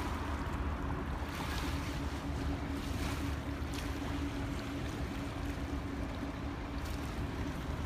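A steady mechanical drone, holding one constant hum, over a wind-like wash of noise.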